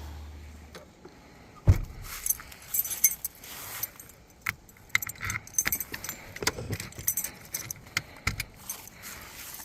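Small metal pieces jingling and clinking in irregular bursts, mixed with scattered handling knocks; a sharp knock about two seconds in is the loudest sound.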